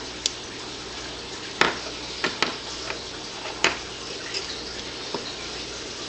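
Several sharp clicks and taps from handling a 9-volt battery and an alarm clock, irregularly spaced, with the loudest about a second and a half in and near the middle, over a steady hiss.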